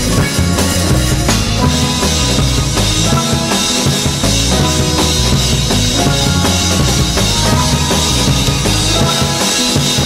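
Background music: a song with a drum kit beat, bass drum and snare, over pitched instrumental notes.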